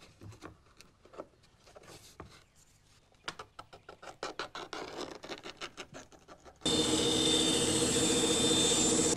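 A hand tool scraping and scratching on a flat plate of cattle horn in short quick strokes, several a second. About two-thirds in, a loud steady machine noise with a high whine cuts in suddenly: a workshop machine running as horn is worked at it.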